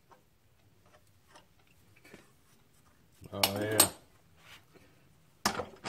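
Hand tools clinking against a steel bench vise: light clicks as a wrench works a part in the jaws, then the wrench clattering down onto the bench about three and a half seconds in, and a sharp metal knock near the end.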